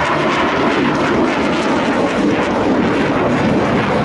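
Loud, steady jet noise from an F/A-18 Hornet-family fighter's twin engines at high power as the jet pulls up into a steep climb.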